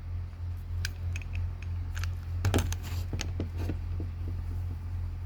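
Semi-automatic carry pistol being handled and checked empty: a quick run of light metallic clicks and clacks, over a steady low hum.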